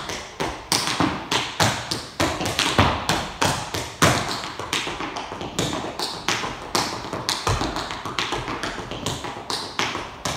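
Tap shoes striking a wooden studio floor in a tap-dance sequence: a run of sharp clicks, several a second, in an uneven syncopated rhythm.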